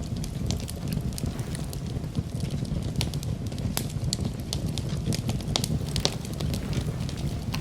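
Campfire burning: a steady low rumble of flames with irregular sharp crackles and pops of burning wood, several a second.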